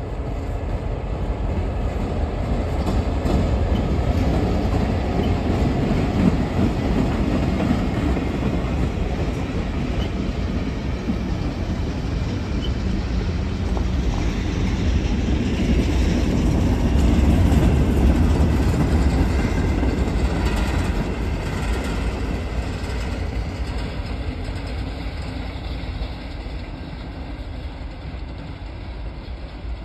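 CSX local freight train passing slowly: the diesel locomotive rumbles by, then tank cars and a covered hopper roll past with wheels clicking over the rail joints. The sound is loudest about halfway through and fades near the end as the train moves off.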